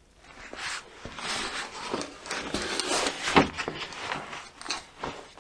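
Cordura fabric bag being handled and folded shut: irregular rustling and scuffing of the stiff nylon cloth, with a few light knocks, the sharpest about three and a half seconds in.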